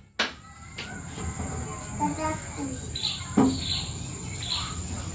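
Steady high-pitched insect drone, like crickets, with a sharp tap just after the start and another about three and a half seconds in.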